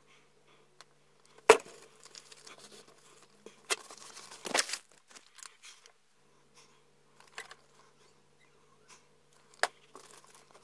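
A sharp clack as a metal spoon is set down, then a few seconds of crinkling as a foil mica pouch is handled, with light knocks and another sharp click near the end.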